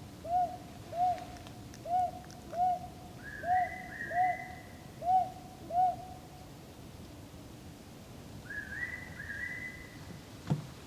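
An owl hooting in evenly paced pairs, hoo-hoo … hoo-hoo, about ten hoots over the first six seconds before it stops. A fairy pitta's higher two-part whistle comes in twice over it, once about three and a half seconds in and again near the end.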